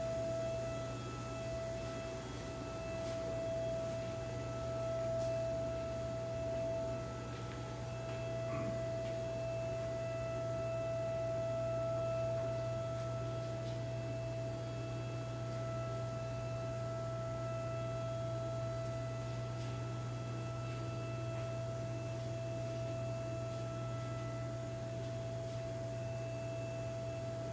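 Steady high-pitched machine whine over a low electrical hum, the whine swelling and fading slightly.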